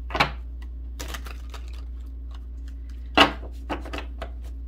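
A deck of oracle cards being handled and shuffled by hand: a string of short clicks and taps, the two loudest about a fifth of a second in and about three seconds in.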